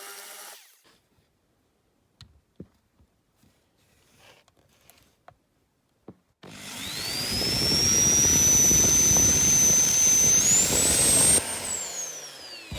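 Electric drill drilling out the rivets of a diecast model: after a few faint handling clicks, it starts about halfway through with a rising whine, runs steadily, speeds up briefly near the end, then is released and winds down with a falling whine.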